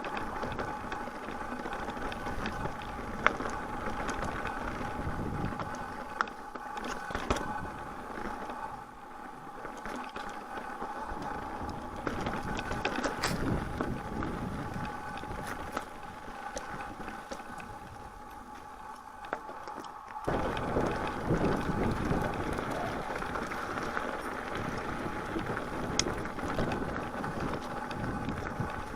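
Mountain bike being ridden over a snowy, rocky trail: steady tyre and trail noise with chain and frame rattle and occasional sharp knocks, getting louder about twenty seconds in.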